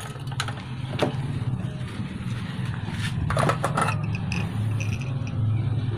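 Seat latch and fuel tank cap of a Keeway RKS 125 motorcycle being opened: a few metal clicks and scrapes, with a cluster of them about three and a half seconds in. A steady low hum runs underneath.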